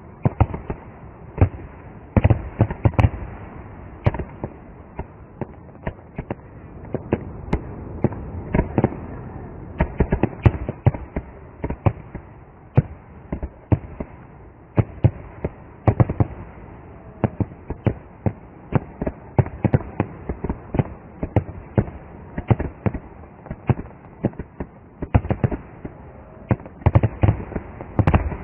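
Aerial fireworks shells bursting: dense, irregular bangs and crackling, several a second, thickest near the end.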